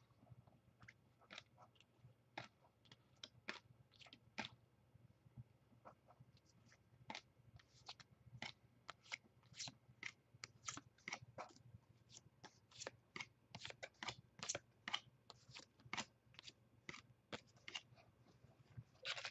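Faint, irregular clicks and flicks of baseball trading cards being slid and flipped through by hand, one after another, coming more often in the second half.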